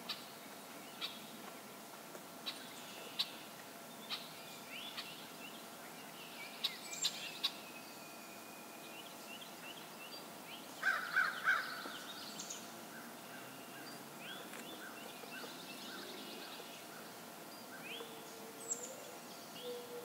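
Outdoor birdsong: assorted short chirps and calls from several birds, with a burst of harsh calls about eleven seconds in. Near the end a low coo begins, a mourning dove.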